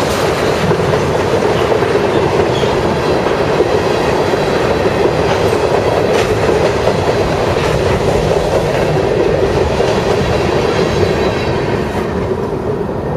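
Iowa Interstate freight train's cars rolling past on the rails in a steady, loud rush of wheel noise, easing off near the end as the last car goes by.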